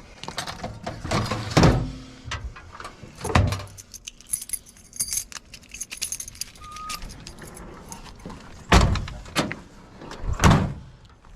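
Metal keys jangling and clattering, with four heavy thumps spread through it.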